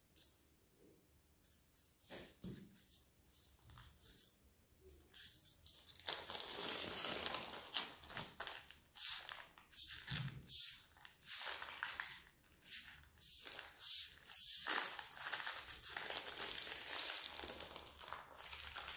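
Baking parchment crinkling and rustling under the hands as it is wrapped around and pressed on a puff pastry roll. A few soft handling sounds at first, then steady crackly crinkling from about six seconds in.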